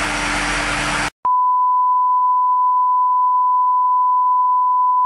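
A steady 1 kHz test tone, the line-up tone that goes with television colour bars, held unbroken after a click about a second in. Before it, a second of loud hiss-like noise cuts off suddenly.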